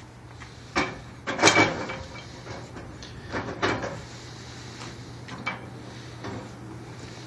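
A few knocks and clatters of a metal balcony railing being handled, with a short rattling clatter about a second and a half in, over a steady low hum.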